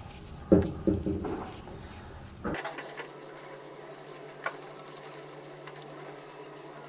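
Cloth harness tape being pulled off the roll and wrapped around a wiring harness, with several short, loud rips in the first second and a half. After that comes a quieter steady background with a single click about four and a half seconds in.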